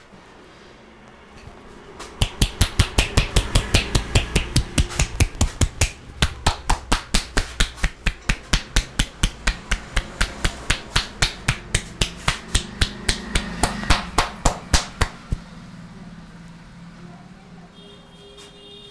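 A barber's hands slapping a customer in a rapid, even rhythm of massage tapping, about four strikes a second, starting about two seconds in and stopping suddenly some thirteen seconds later.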